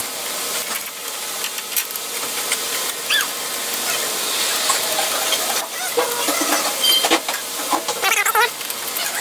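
Wrench work on a front wheel bearing's hub bolts: scattered metal clicks and taps over a steady hiss, with a few short high chirping squeaks.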